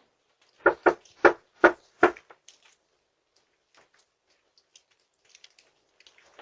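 Five sharp knocks on a door, the first two close together, the rest about half a second apart, followed by a few faint clicks.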